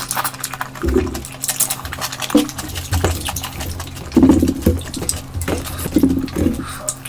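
Close-miked eating of curry: irregular wet chewing and slurping, over a steady low hum.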